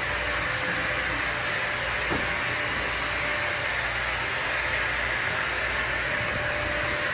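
Steady rushing background noise with a faint high-pitched whine.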